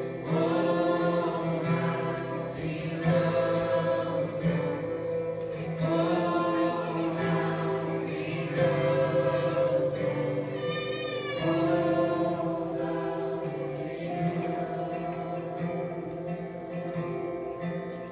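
Gospel worship song: singing voices with guitar accompaniment, with sung phrases that waver on held notes.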